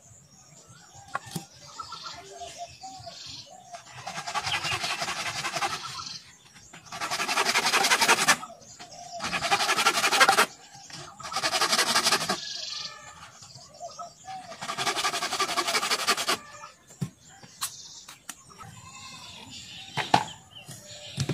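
Bamboo pole being sawn by hand: about five runs of rasping saw strokes, each lasting one to two seconds, with a few sharp knocks in between.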